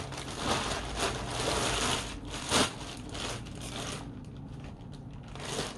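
A shipping bag rustling and crinkling as it is handled and turned over, with one brief louder crackle midway. The handling grows fainter for the last couple of seconds.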